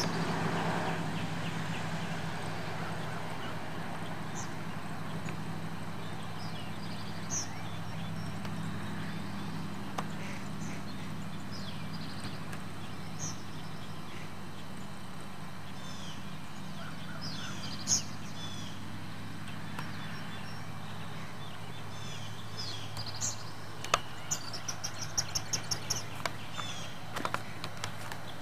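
Birds chirping and calling now and then, with a quick run of rapid notes near the end, over a steady low hum that fades after about twenty seconds.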